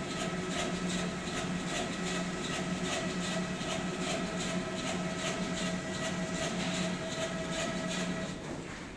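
Automatic flatbed screen printing machine running: a steady motor hum and whine with an even ticking of about three clicks a second. The hum cuts off about eight seconds in.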